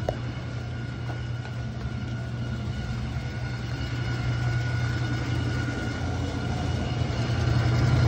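Old Whirlpool agitator washing machine running with a steady low hum and a rattling, grinding noise, which the owner suspects comes from a failing pump. It gets louder near the end.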